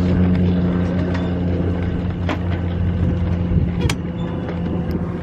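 A steady low engine hum, like an idling vehicle, with a few sharp clicks, the loudest about four seconds in.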